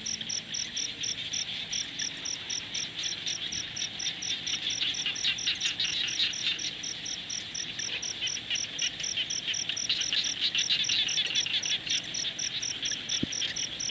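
Crickets chirping in a steady, even rhythm of about four or five high-pitched chirps a second, over a denser rapid trilling chorus that swells twice. A single soft click sounds near the end.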